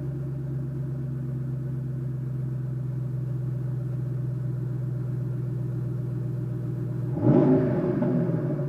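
A 2014 Shelby GT500's supercharged 5.8-litre V8 idling steadily. About seven seconds in, a quick throttle blip sends the revs up, and they fall back within about a second.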